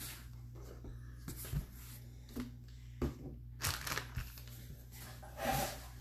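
Intermittent crinkling and rustling of packaging being handled, with a few short knocks. The loudest rustles come just past the middle and near the end.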